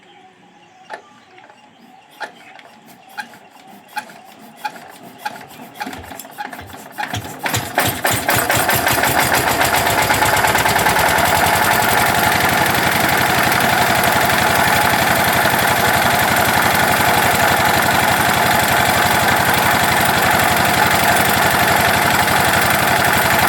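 Sonalika diesel generator engine being turned over, with single thumps about a second apart that come quicker and louder until it catches about eight seconds in. It then runs loud and steady.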